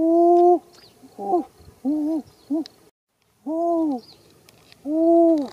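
A bird's hooting calls: a longer hoot at the start, three short ones in the middle, and two more hoots near the end, each rising a little and falling away at its close.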